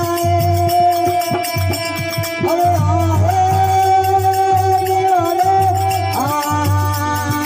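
Rajasthani folk bhajan music: a sustained melody line with a few sliding pitch changes over a steady pulsing drum beat and light percussion.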